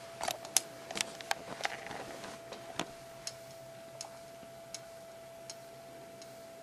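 A run of sharp, irregular small clicks and taps, many in the first few seconds and then thinning to a few scattered ticks, over a faint steady hum.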